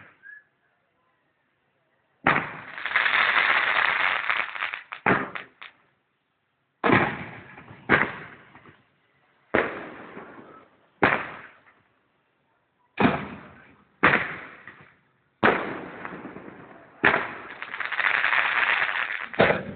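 Fireworks going off: about ten sharp bangs spaced a second or two apart, each trailing away, with two spells of dense continuous noise a couple of seconds long, one near the start and one near the end.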